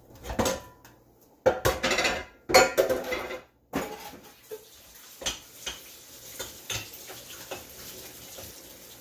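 Kitchenware clattering while a can of kidney beans is drained and rinsed: several loud clanks in the first three and a half seconds, then lighter scattered clinks over a faint steady hiss.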